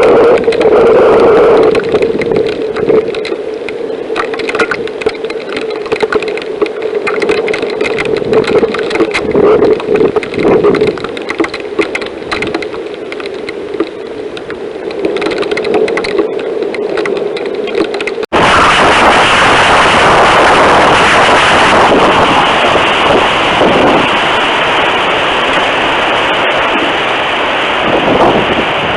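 Thunderstorm high wind buffeting a trail camera's microphone: for the first part a steady whistling tone with crackling, then about 18 seconds in it cuts off abruptly into a louder, even rush of wind noise.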